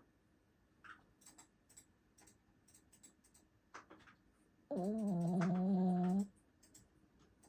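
A sleeping dog gives one steady, pitched snore lasting about a second and a half, about two-thirds of the way in. Faint scattered clicks sound around it.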